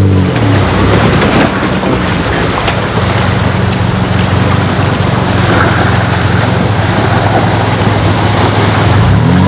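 Off-road 4x4 truck engine running at a steady idle, a constant low hum under a loud even hiss.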